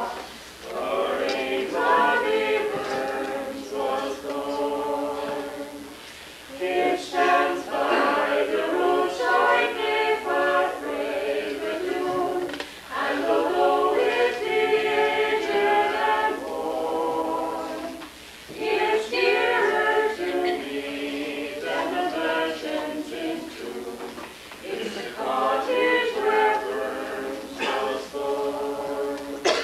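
A small mixed group of men and women, with a child among them, singing a song together in phrases of about six seconds, with short breaks between phrases.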